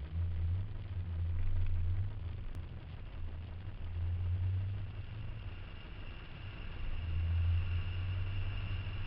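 Car engine and road noise heard from inside the cabin while driving: a low hum that swells and eases three times, with a faint high whine coming in during the second half.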